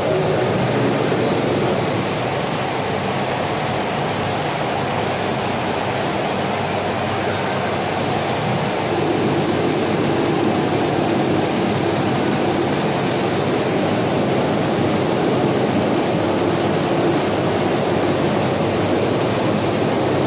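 Steady hiss and hum of running industrial machinery at a vertical CNC glass drilling and milling machine, with a faint low tone under the noise.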